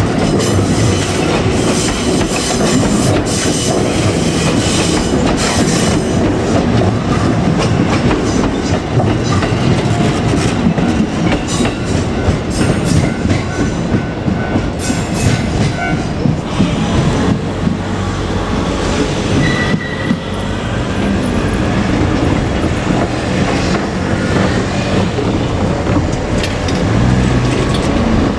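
JR Kyushu 787 series electric express train running on the rails, with a continuous loud rumble and repeated clickety-clack of its wheels over the rail joints.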